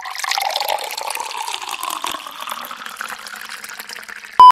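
A steady rushing, water-like noise that starts suddenly and thins out slowly. Near the end comes a short, very loud single-pitch beep.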